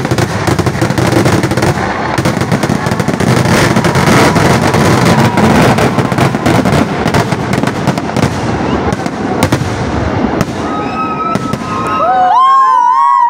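Kerala temple-festival fireworks (vedikettu): a dense barrage of aerial shells bursting in rapid, continuous bangs and crackle, thinning out after about ten seconds. Near the end, people shout and cheer.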